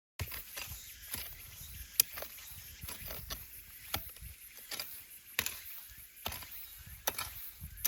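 A hand tool chopping into soil while digging up potatoes: repeated sharp knocks, roughly one a second, over a low rumble.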